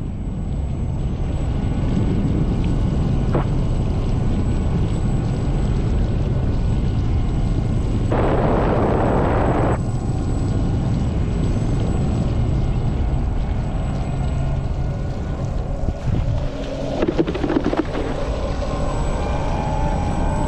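Steady low motor drone, as on a craft under way on open water. A louder hiss rises about eight seconds in and lasts under two seconds.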